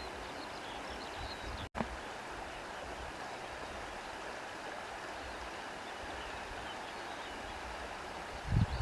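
Steady rush of a flowing stream. The sound cuts out for an instant a little under two seconds in, and a short low thump comes near the end.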